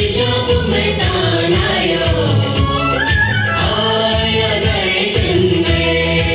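Song with singing over a steady beat, playing as dance music.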